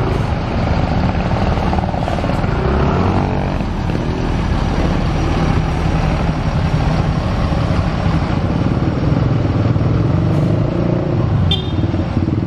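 Mercedes-Benz OH 1626 coach's rear-mounted diesel engine running steadily under load as the bus climbs a steep hill, with motorcycles passing close by. The owner says it still lacks power on the climb and needs further tuning.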